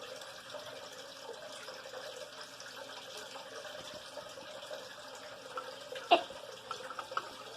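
A steady, even hiss, with a single sharp click about six seconds in.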